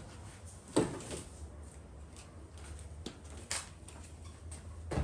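A few light knocks and clicks from tools and parts being handled, the loudest about a second in, over a low steady hum.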